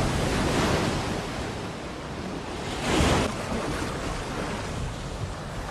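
Surf washing in around steel beach obstacles, a steady rush of waves with one wave surging louder about three seconds in.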